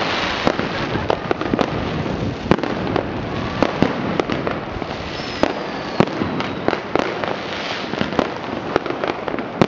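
Many fireworks and firecrackers going off all around, with irregular bangs over a continuous dense crackle. A whistle falls in pitch about five seconds in.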